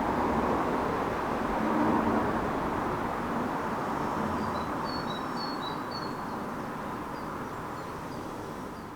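Steady road traffic noise that swells about two seconds in and slowly fades, with a few short bird chirps in the middle.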